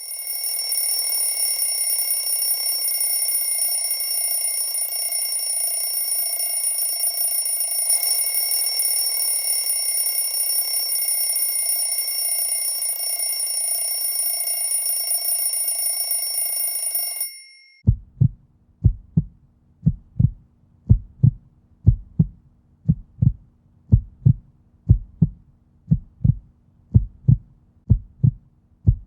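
Added sound effects: a steady high-pitched electronic whine over a hiss, which cuts off suddenly about two-thirds of the way in. It is followed by a heartbeat effect, low thumps at about one and a half a second.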